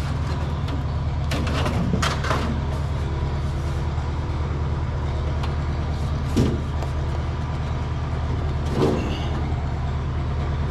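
A steady low hum runs throughout, with a few brief rustles and taps of thin aluminium sheet being handled and pressed by hand, the clearest about two-thirds of the way in and near the end.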